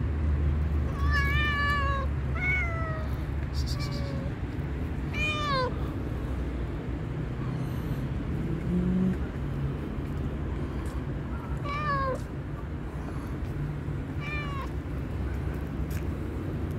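Hungry black-and-white stray cat meowing repeatedly: about four meows in the first few seconds, one sliding down in pitch, then a pause and two more meows. A steady low rumble runs underneath.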